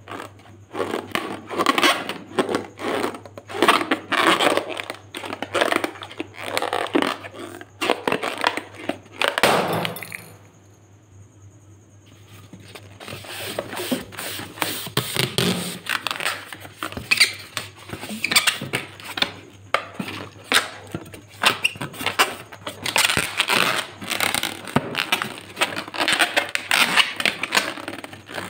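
Hands squeezing and rubbing latex balloons: a dense run of irregular scraping and clicking sounds, broken by a short lull about ten seconds in.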